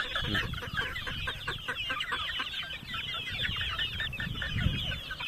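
A flock of month-old gamefowl chicks peeping and chirping, many short, high calls overlapping without a break.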